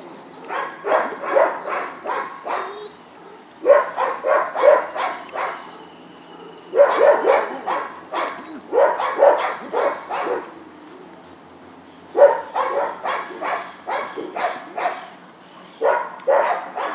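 German Shepherd-type dog barking hard in rapid volleys at a decoy during protection (guard) training, several quick barks a second with short pauses between the bursts.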